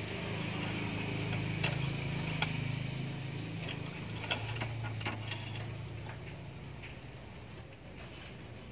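Metal engine-oil dipstick handled and slid in and out of its tube, giving a few light clicks and scrapes, over a low steady hum that fades in the second half.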